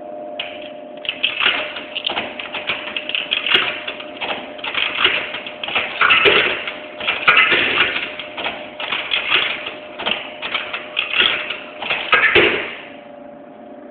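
Coins clicking and rattling as they are handled and sorted, a dense run of small metallic clinks that stops just before the end. A steady low hum sounds underneath.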